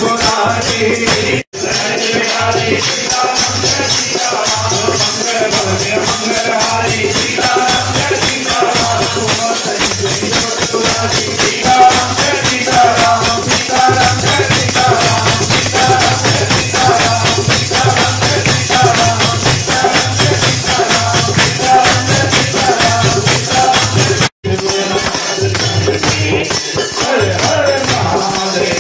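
Hindu devotional music: small hand percussion keeps a fast, steady shaking rhythm under a short melody repeated over and over. The sound cuts out briefly twice, about a second and a half in and again near the end.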